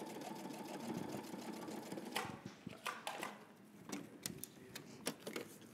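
Brother Strong and Tough computerized sewing machine stitching hemp cord onto heavy leather with a zigzag stitch, running at an even pace. It stops about two seconds in, and a few scattered clicks follow.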